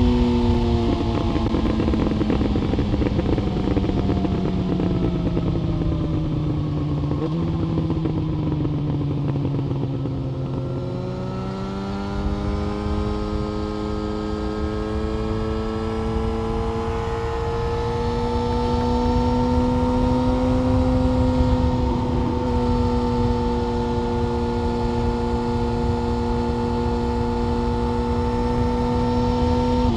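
Yamaha FZ1 Fazer inline-four through an SC-Project exhaust, heard from the rider's seat. Revs fall away for the first ten seconds or so, with a downshift about seven seconds in, then climb and hold steady at cruising speed for the last ten seconds, over a constant rush of wind.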